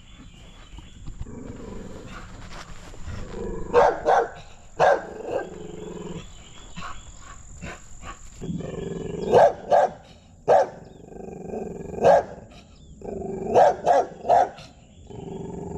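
A dog barking repeatedly in short runs of one to three sharp barks, with pauses of a second or more between the runs.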